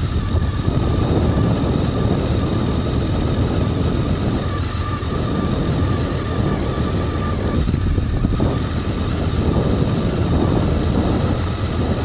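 Honda VFR Interceptor's V4 engine running steadily as the motorcycle rides along a dirt forest track, under a dense rush of wind and road noise.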